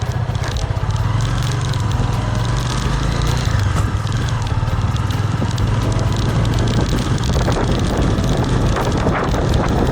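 Small vehicle engine running steadily while on the move, with wind noise on the microphone.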